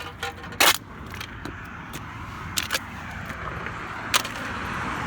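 A car passing, its tyre and engine noise growing louder through the second half, with a few sharp metallic clicks and rattles, one loud one about a second in.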